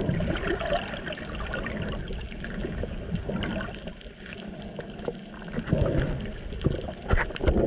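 Underwater sound around swimming spinner dolphins: rushing water and bubbles, with many short sharp clicks of dolphin sonar. It swells louder about six seconds in and again near the end.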